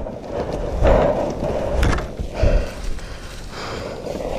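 Heavy, out-of-breath breathing from an exhausted rider, a breath about every second, over thuds and scuffs of boots and a dirt bike being handled on the trail. No engine is heard running.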